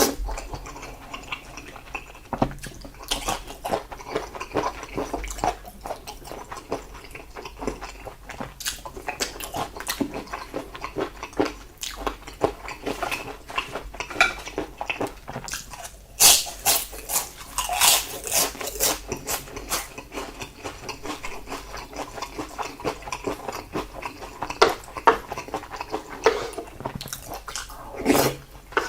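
Close-miked chewing and wet mouth sounds of someone eating salted seafood with rice, with irregular sharp clicks and smacks. A denser run of louder clicks comes a little past halfway.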